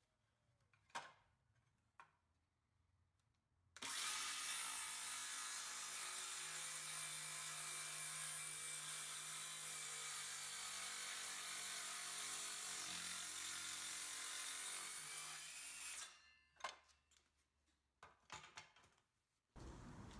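Power drill running steadily for about twelve seconds while boring a hole, its motor pitch dipping briefly partway through as the bit loads up. A few light clicks and knocks come before and after.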